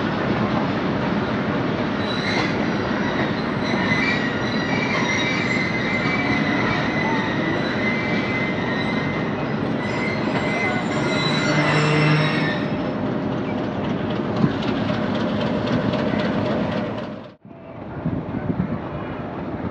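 Passenger train moving through a station, its steel wheels rumbling and clattering on the rails, with a high-pitched wheel squeal from about two seconds in until about twelve seconds in. The sound drops out briefly near the end, then the rumble resumes.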